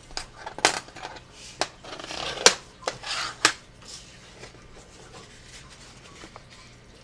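Scored cardstock being folded along its score lines and creased with a burnishing tool: a handful of sharp paper snaps and taps with a short rubbing stroke, all in the first half, then only faint handling.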